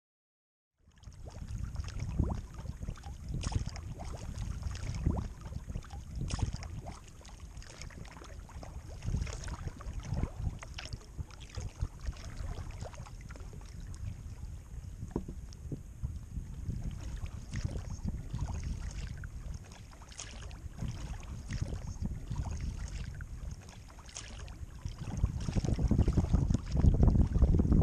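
Kayak paddling: paddle blades dipping and splashing, and water lapping at the hull, starting about a second in. Wind rumbles on the microphone and grows louder near the end.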